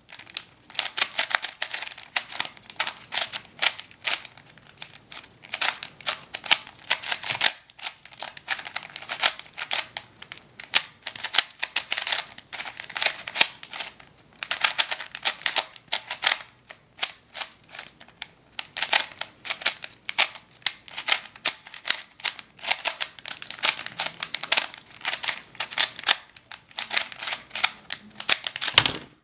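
A brand-new, not yet worked-in Rubik's brand 3x3 cube turned rapidly through a full solve. It makes a dense, continuous run of plastic clicks and clacks as the layers snap round, stopping just before the end.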